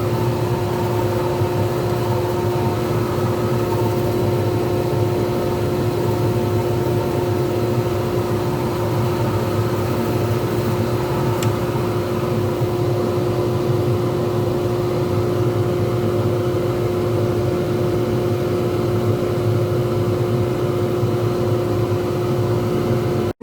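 Pen-turning lathe running steadily with a resin pen blank spinning on it, a constant motor hum with a steady tone and no cutting or load changes.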